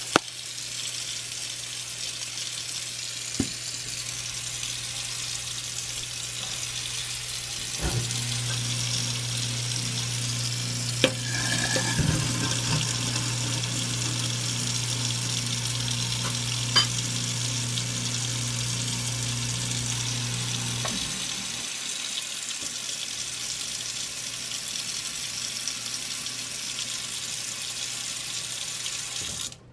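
Tap water runs into a kitchen sink throughout. About 8 seconds in, a new garbage disposal switches on with a low, steady hum, runs for about 13 seconds, then switches off while the water keeps running. A few sharp clicks and knocks sound along the way.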